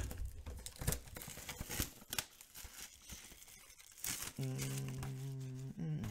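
Plastic wrapping on a trading-card box crinkling and tearing in irregular rustles. About four seconds in, a low steady hum starts, stepping down in pitch just before the end.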